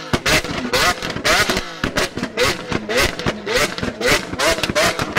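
Lamborghini Aventador S V12 with a straight-piped Capristo exhaust, revved while standing still in a quick string of short, rising blips. Sharp cracks and pops come between the revs.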